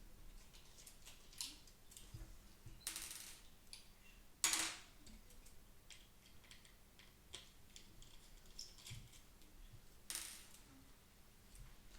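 Small plastic parts and tools being handled while a computer mouse is taken apart: scattered light clicks and taps, with three short scraping bursts, the loudest about four and a half seconds in.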